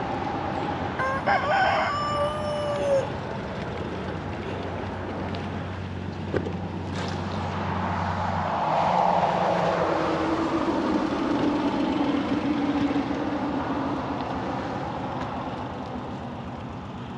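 A rooster crowing once, about a second in, over a steady low hum. A broad swell of noise rises and fades in the second half.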